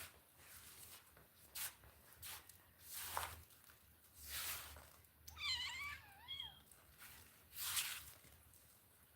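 A cat meows once, a short wavering meow about five seconds in, among several brief soft rustling noises.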